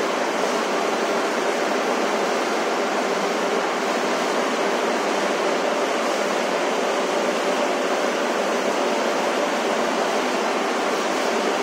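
Steady machinery noise from a waste sorting line's conveyors and drives: a constant loud hiss with a faint, even hum, unchanging throughout.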